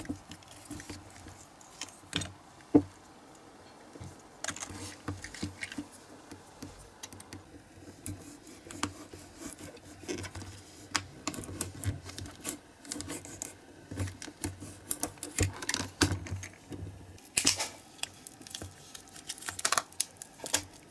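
Thin red plastic cup being cut open with a blade and peeled off a cast pink mould by hand: irregular crackling and clicking of the plastic, with one sharp click about three seconds in.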